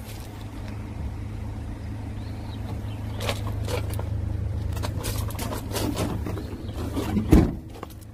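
Van engine idling with a steady low hum, with a few light clicks and knocks from the rear of the van and one heavy thump about seven seconds in, like the tailgate being shut.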